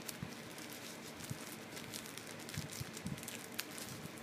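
Small clear plastic bag crinkling and rustling in the hands, an irregular run of light crackles.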